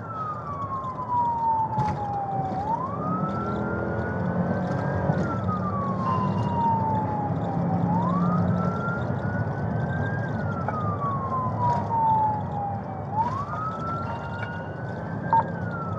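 Police car siren on a slow wail, falling and rising about every five seconds, heard from inside the patrol car during a pursuit over steady engine and road noise.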